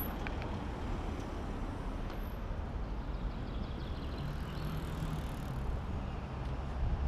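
Street traffic: a steady low rumble of passing vehicles. One engine hum stands out about four seconds in.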